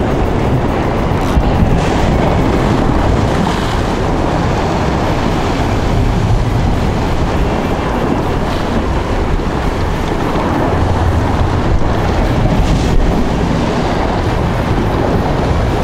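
Sea waves washing and breaking against rocks, with wind buffeting the microphone.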